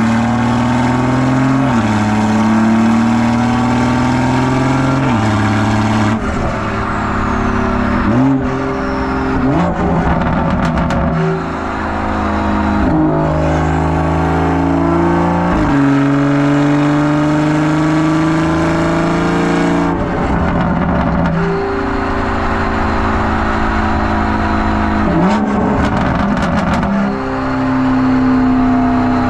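Exhaust of a BMW 340i's turbocharged B58 inline-six with a catless downpipe, valves open, pulling at light to medium throttle: the note climbs in pitch through each gear and drops at several upshifts. A few bursts of crackling burbles come when the throttle is lifted.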